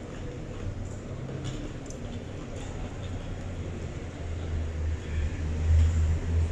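Street traffic: a low engine rumble that swells from about four seconds in, as of a heavy vehicle close by.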